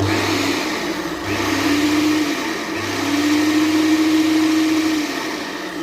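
Electric kitchen blender motor running, its whine dipping and picking back up twice before running steadily.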